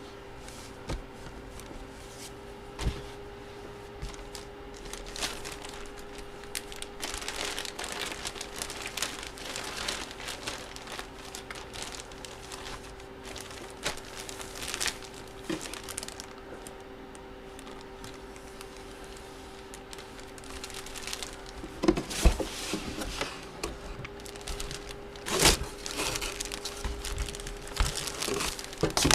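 Plastic packaging crinkling and rustling as sealed trading-card items are opened and handled, with a few sharp taps and knocks near the end. A steady faint hum runs underneath.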